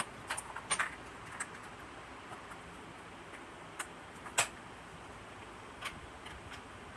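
Small clicks and taps of a torch's reflector cup and clear plastic lens being handled, scattered irregularly over a faint steady hiss; the sharpest click comes a little past the middle.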